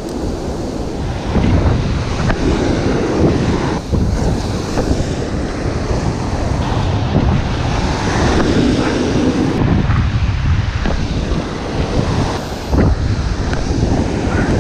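Ocean surf breaking and washing on the beach, with strong wind buffeting the microphone.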